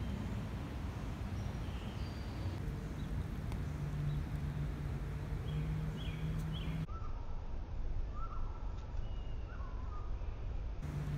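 Outdoor ambience: scattered short bird calls over a constant low rumble, with a steady low hum in the first part; the background changes abruptly about seven seconds in.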